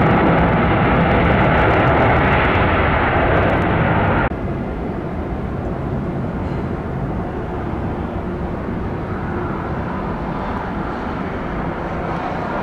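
Boeing 767-300F freighter's jet engines running loud during its landing rollout. About four seconds in, this cuts off abruptly to the quieter, duller, steady jet noise of an Airbus A350-900, whose Rolls-Royce Trent XWB engines carry it in to touch down.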